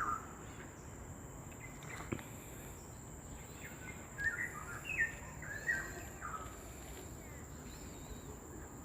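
A bird calling outdoors: a run of short whistled notes stepping up and down in pitch, heard briefly at the start and again about four seconds in, over a steady high-pitched hum.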